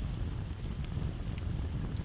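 Campfire crackling with a few sharp pops over a steady low rumble of flames and breeze, with a steady high chirring of crickets behind it.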